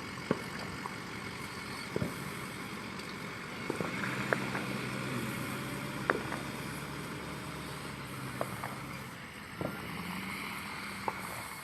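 A vehicle engine running steadily, with a handful of short, sharp pops scattered every second or two.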